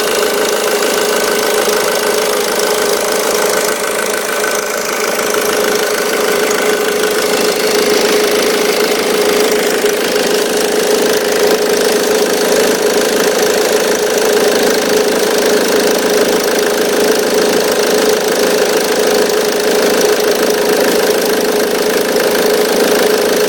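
Ford Mondeo Mk3 2.0 TDCi diesel engine running steadily, with the squeak and rattle of a noisy auxiliary belt tensioner.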